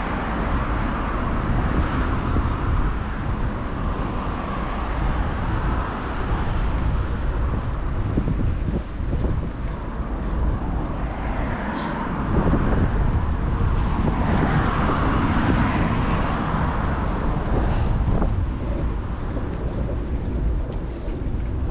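City street noise heard while cycling: a steady rumble of wind on the microphone mixed with passing traffic, which swells for a few seconds from about eleven seconds in. A brief sharp click sounds about twelve seconds in.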